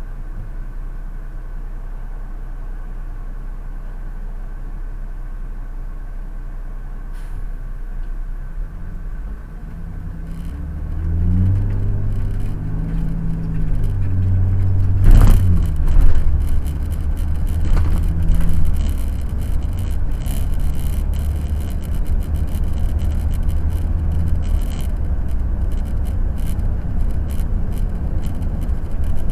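Cummins ISL 400 inline-six diesel of a 2007 Monaco Camelot motorhome idling low at a stop, then pulling away, its pitch stepping up and down as it gathers speed through the gears. Two loud thumps about fifteen seconds in, then steady engine and road noise at speed with scattered knocks.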